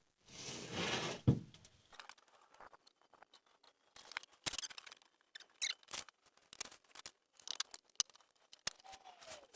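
A large thin plywood sheet slides and rustles as it is laid down, landing with a thump just over a second in. Scattered light clicks and scrapes follow as it is handled and measured.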